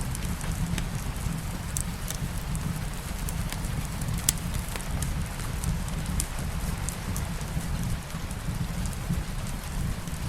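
Steady light rain mixed with a crackling fireplace: a continuous low rumble and hiss with scattered sharp ticks and pops, the sharpest about four seconds in.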